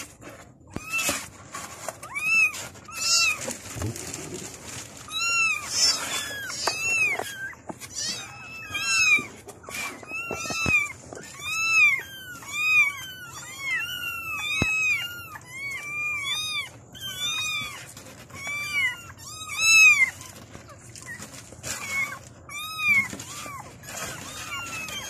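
A litter of young kittens mewing over one another, many short high-pitched mews that rise and fall in pitch, calling for their mother. The calls come thickest in the middle and thin out near the end.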